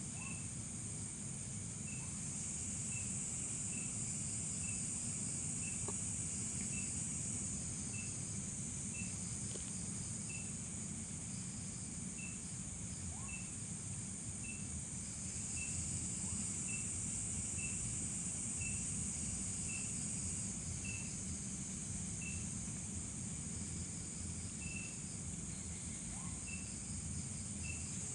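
Night insect chorus: a steady high shrilling of crickets, with one insect giving a short regular chirp about every two-thirds of a second, over a steady low rumble.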